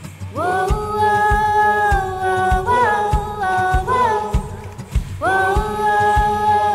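Background music: a wordless sung melody of long held notes and slides, over a steady low beat.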